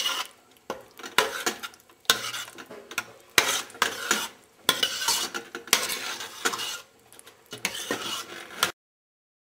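A metal spoon stirring a thick eggplant bharta in a stainless steel pot, scraping and clinking against the pot's sides in irregular strokes about once a second. It stops abruptly near the end.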